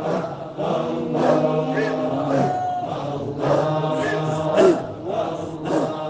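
Sufi devotional chanting by a group of voices singing together, with long held notes and several voices overlapping at different pitches.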